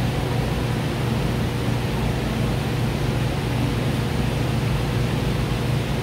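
Steady low hum with an even hiss over it, unchanging throughout, with no distinct knocks or clicks.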